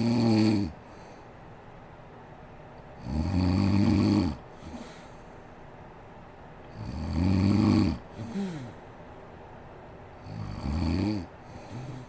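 A sleeping woman snoring in a slow, regular rhythm: four deep, rattling snores, one about every three and a half seconds. Most are followed by a short, softer sound that falls in pitch.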